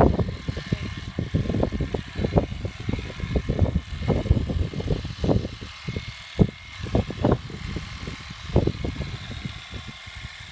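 Heiniger Xplorer electric horse clipper running with a steady high whine while it cuts through the horse's coat, under irregular gusty rumble from wind on the microphone.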